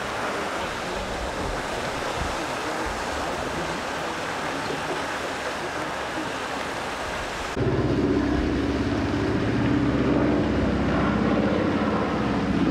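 Radio-controlled model motorboat running on a lake, an even rushing noise of motor and water. About seven and a half seconds in, a cut brings a louder, steady low motor hum made of several held tones.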